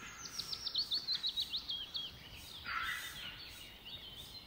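A bird singing: a quick run of about a dozen short, high notes, each dropping slightly in pitch, for about two seconds, followed by softer chirps in the background.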